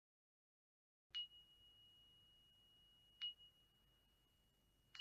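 A high-pitched chime, struck three times about two seconds apart, each strike ringing on at one steady pitch; faint.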